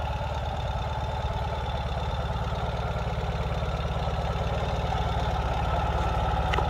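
2022 Ural Gear Up sidecar motorcycle's air-cooled 750 cc boxer twin idling steadily.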